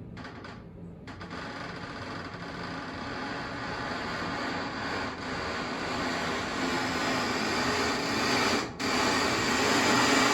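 Dishwasher running: a steady rushing noise over a low hum that grows gradually louder, with a brief dropout about three quarters of the way in.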